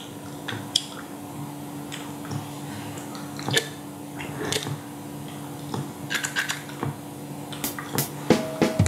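Low steady hum with scattered small clicks and rustles. The hum stops shortly before the end.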